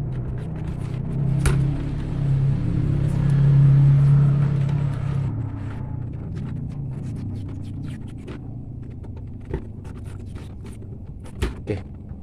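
Electrical insulating tape being pulled off its roll and wound around twisted wire joints: a rasping hiss from about one and a half to five and a half seconds. After that, light clicks of wires and plastic fittings being handled. A steady low rumble runs underneath.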